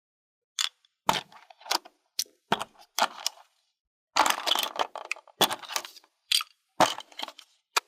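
Plastic toy picnic pieces being handled: a string of sharp clicks and clacks, with a longer crackling, rustling stretch about four seconds in.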